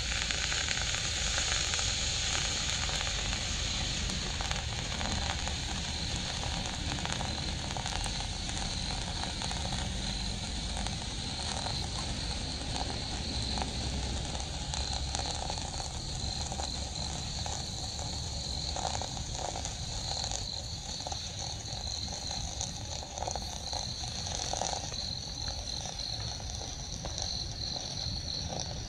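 Pink smoke firework hissing steadily as it pours out smoke, with a steady high chirring in the background that grows clearer near the end.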